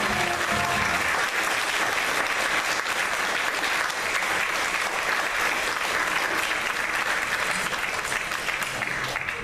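Audience applauding in a hall at the end of a stage musical number, steady clapping throughout; the last notes of the backing music die away in the first second.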